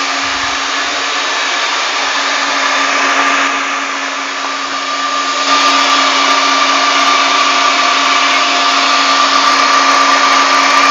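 Electric mixer running at top speed, beating eggs and sugar until the batter turns pale and thick. A steady motor whine that dips slightly about four seconds in, then runs a little louder.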